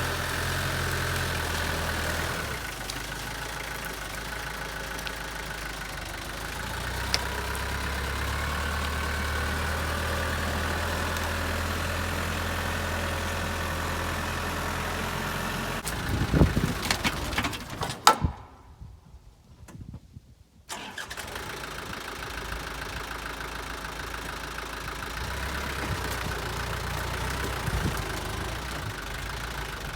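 Mini excavator engine running steadily. About sixteen seconds in there is a cluster of loud knocks and clatter, the sound drops out for a couple of seconds, and then the engine drone resumes.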